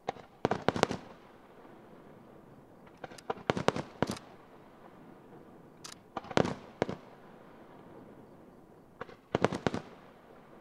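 Aerial firework shells bursting in four clusters of rapid sharp bangs, one cluster about every three seconds.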